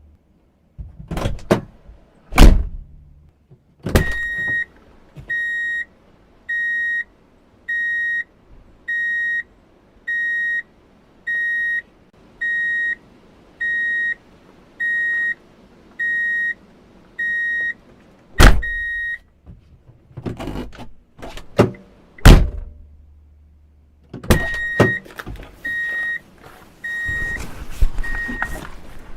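Car doors opening and shutting, with latch clicks and solid thunks as they close. While a door stands open, the car's door-open warning chime beeps steadily at about one beep a second, then stops when the door is shut.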